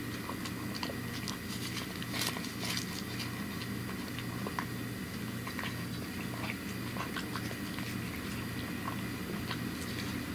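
A cat eating bonito flakes from a plastic bowl: many quick, irregular chewing and licking clicks and smacks.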